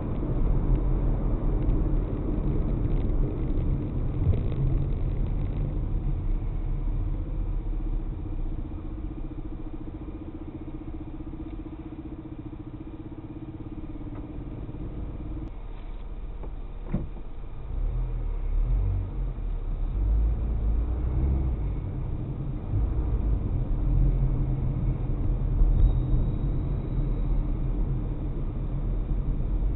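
Car driving, recorded by an in-car camera: a low rumble of engine and road noise. A steady hum underneath stops about halfway through, the rumble is quieter for a stretch in the middle, it grows louder again from about eighteen seconds in, and there is a single short click a little after the hum stops.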